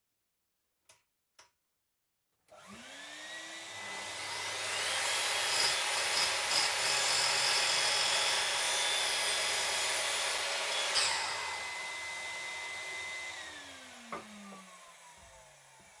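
Electric chop saw starting up with a rising whine and cutting through a block of softwood at an angle. After the cut the motor runs free and winds down with a falling whine. Two faint clicks come before it starts.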